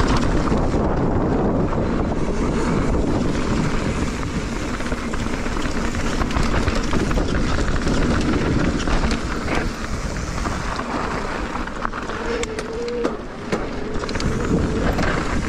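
Mountain bike rolling fast down a rough dirt and gravel trail: tyres crunching over the surface and the bike rattling, with wind rushing over the camera microphone. A few sharp clicks and knocks come near the end.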